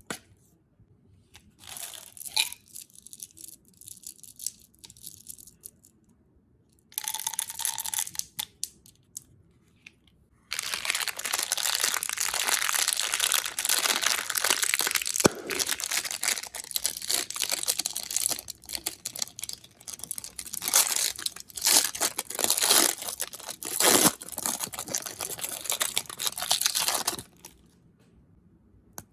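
Candy wrappers being crinkled and torn open: a few short bursts of crinkling, then near-continuous crackling and tearing from about ten seconds in, stopping shortly before the end.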